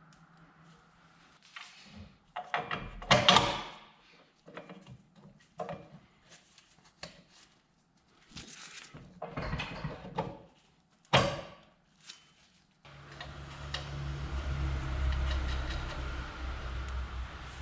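Metal knocks, clanks and scrapes as a Ford 8.8 rear axle housing is worked into position under the car, with a sharp click about eleven seconds in. Near the end a steady low hum comes in and runs for several seconds.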